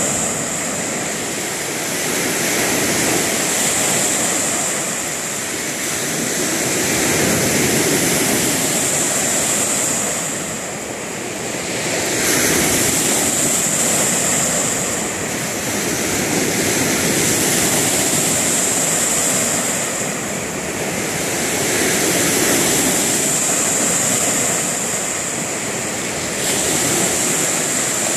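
Lake Ontario waves breaking and washing up on a sand beach: a steady rush of surf that swells and eases every few seconds.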